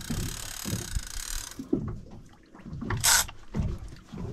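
Two-speed conventional fishing reel ratcheting as line is worked, with a short harsher burst about three seconds in and low knocks and bumps from handling the rod.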